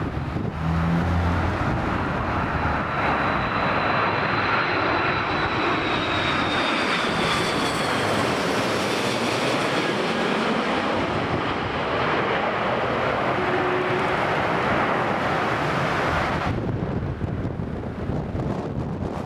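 Airbus A330-300 twin-jet airliner passing close on landing: a loud, steady jet roar with a high whine that slides slightly down in pitch. The roar drops away sharply near the end, leaving wind on the microphone.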